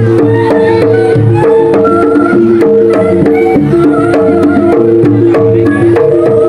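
Javanese jaranan music: hand drums beat a quick, steady rhythm over sustained, repeating gamelan tones, with a higher melody line that bends in pitch.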